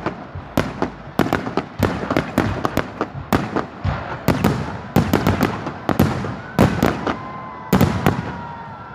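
Fireworks display going off in a rapid volley: many sharp bangs and cracks in quick succession, thinning out near the end, with a faint steady whistling tone over the last couple of seconds.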